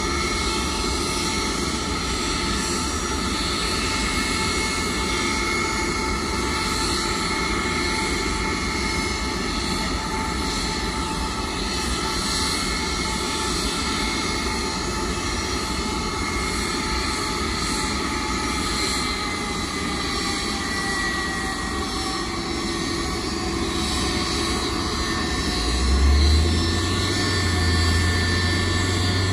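Boeing 747-400 Dreamlifter's jet engines running at idle on the ground, a steady whine of several high tones over a rushing hum. Near the end a deeper engine hum rises, the pushback tug's engine revving before it pulls away.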